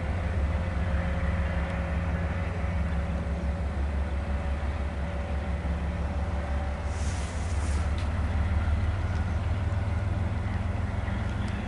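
MBTA MPI HSP46 diesel-electric locomotive's GE 12-cylinder engine running with a steady low rumble as the locomotive moves slowly toward the listener. A brief hiss of air comes about seven seconds in.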